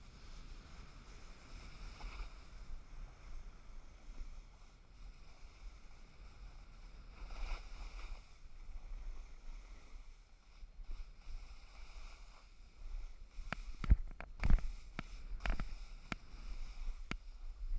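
Snowboard sliding down packed snow, heard through a head-mounted GoPro Hero3: a steady low rumble of wind buffeting the microphone with a faint scraping hiss of the board. Near the end come a handful of sharp knocks, the loudest a little before the final few seconds.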